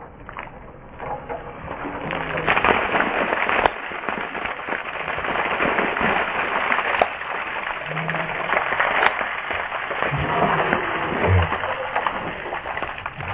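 Ice water pouring from a pan onto a person's head and splashing with chunks of ice onto concrete, building up over the first couple of seconds and going on steadily.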